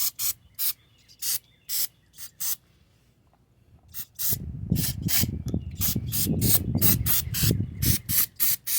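Aerosol carb cleaner sprayed onto a dirty small-engine carburetor in many short spritzes, with a pause of about a second and a half near the middle. From about halfway a low rubbing rumble runs under the spritzes.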